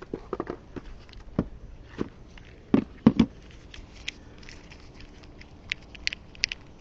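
Scattered clicks and knocks of tools and gear being handled and set down. The loudest pair of knocks comes about three seconds in, followed by lighter, sharper clicks.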